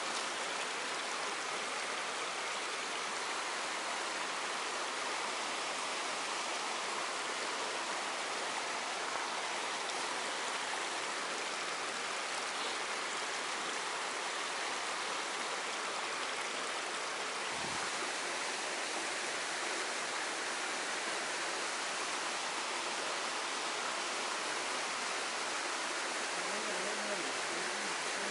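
Waterfall, a steady, unbroken rush of falling water.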